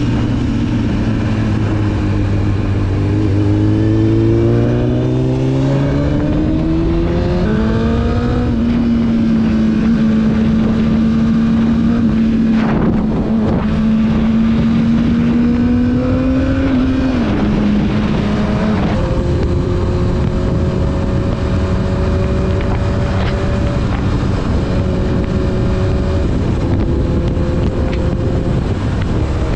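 Honda CBR1000RR inline-four sport bike engine under way on the road. Its pitch rises over the first several seconds, holds steady, drops in two steps around two-thirds of the way through as it shifts up, then settles into a steady cruise. A steady rush of wind noise runs under it.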